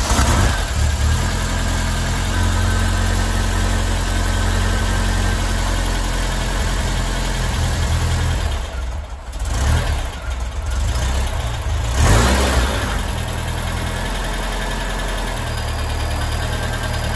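Supercharged air-cooled VW flat-four engine, freshly fitted with an AMR500 supercharger kit and Weber IDF carburettor, running just after starting. It is blipped on the throttle about nine and twelve seconds in, then settles to a lower, steady idle near the end.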